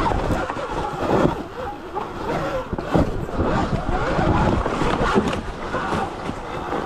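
Wind buffeting the microphone over a Sur-Ron electric dirt bike riding a rough, rocky trail, with frequent knocks and rattles from the bike as it bumps over rocks.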